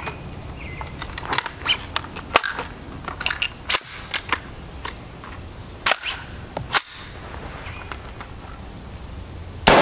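Scattered sharp metallic clicks of a rifle being handled, then a single .223 Remington rifle shot from a 20-inch barrel near the end, firing steel-cased 55-grain FMJ, followed by a long echo.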